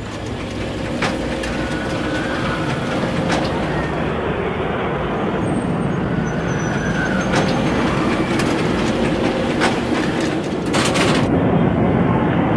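Roller coaster train rumbling and rattling along its track, with separate clacks and a couple of short wheel squeals.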